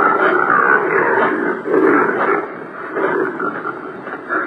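Impala's call, very guttural, loudest in its first second or so and then carrying on more unevenly.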